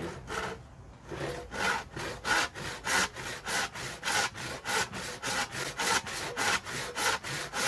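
Hand saw cutting across a wooden pallet board in quick back-and-forth strokes, about three rasps a second. After a short pause about a second in, the strokes settle into a steady rhythm.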